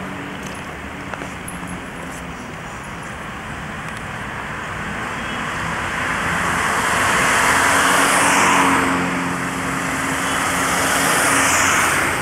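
Road traffic: a steady hum of traffic, with two cars passing close by, the first swelling about two-thirds of the way in and the second near the end.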